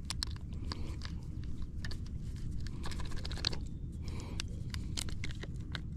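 Small irregular clicks and crackles of hands handling a crappie and working a hair jig out of its mouth, over a steady low rumble.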